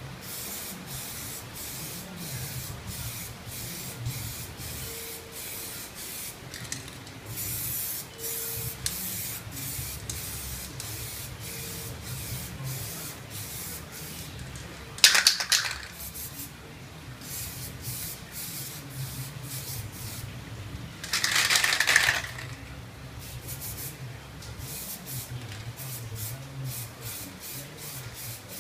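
Aerosol can of rubber film paint spraying in many short, quick bursts as the nozzle is tapped over a car side mirror. Two louder, longer bursts come about halfway through and again about two-thirds of the way in.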